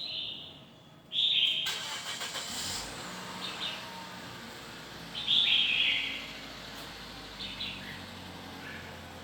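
Red-whiskered bulbul singing short, bright phrases every second or two. From about two seconds in, steady motor-vehicle noise with a low hum runs underneath.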